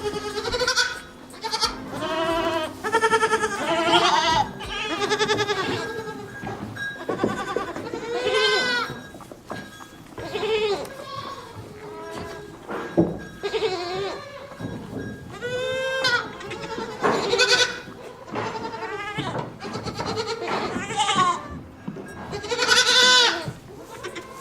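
Goats bleating, call after call, each bleat with a quavering pitch.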